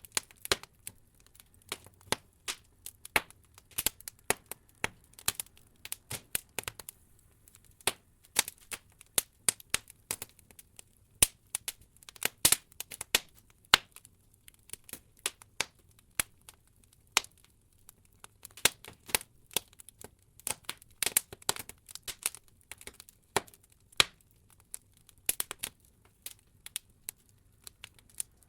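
Wood-log fire in an open fireplace crackling: irregular sharp pops and snaps, several a second and some much louder than others, over a faint low rumble.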